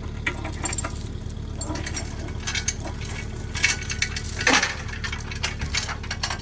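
Metal clinking and clanking, a run of sharp knocks with the loudest two about three and a half and four and a half seconds in, over a steady engine hum.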